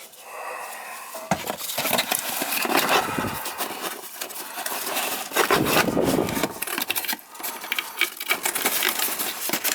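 Irregular rustling, scraping and clicking of parts and packaging being handled and rummaged through by hand.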